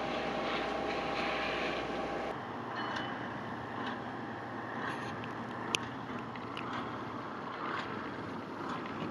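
A boat engine running steadily with a constant hum, cut off abruptly about two seconds in. After that comes a steady rushing background with scattered small clicks and one sharp click near the middle.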